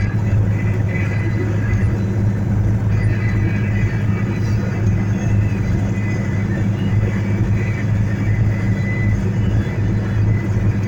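Vehicle engine idling steadily with a low, even hum, heard from inside the cab.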